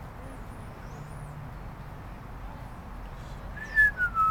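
Steady outdoor background noise with a few faint high bird chirps in the first second and a half. Near the end a loud sharp crack, as a person starts whistling a wavering tone that falls in pitch.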